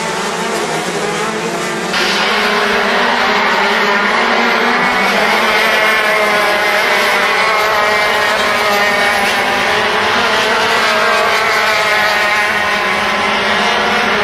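Several racing go-kart engines buzzing at high revs as a pack of karts races by, their pitches wavering up and down together through the corners. The sound changes abruptly about two seconds in.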